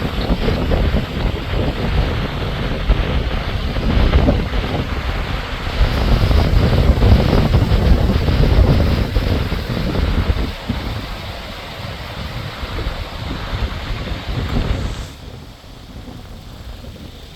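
Strong wind buffeting the microphone over the rush of rough, rain-swollen water. The wind noise gusts and then eases sharply about fifteen seconds in.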